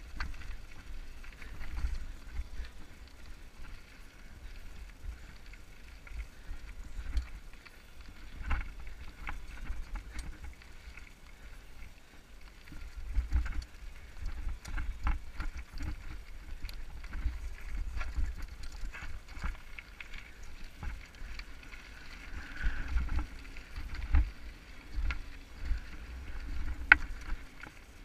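Mountain bike riding down a rocky dirt singletrack: wind rumbling on the helmet camera's microphone, with the bike's tyres and frame rattling and knocking irregularly over the stones, and one sharp knock near the end.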